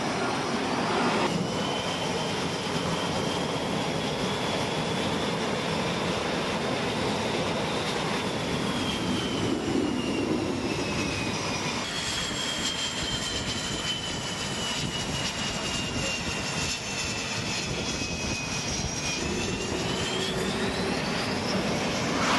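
F/A-18 Hornet jet engines running, a steady rushing roar with a high turbine whine that drifts slowly down in pitch, changes abruptly about halfway through, and rises again near the end.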